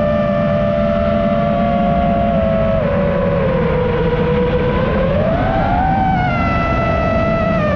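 Small FPV quadcopter's motors whining as it flies. The pitch drops slightly about three seconds in, then rises again around five to six seconds in with the throttle, over a low rushing noise.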